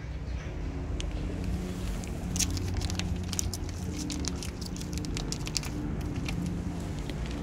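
Cat eating wet food off a kerb: quick wet clicks and smacks of chewing and licking, with a foil food pouch crinkling as it is squeezed. A steady low motor drone runs underneath.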